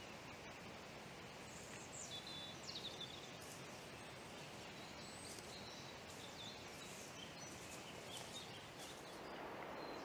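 Small woodland birds chirping, with a cluster of calls about two seconds in and a few more later, over a steady rushing background noise.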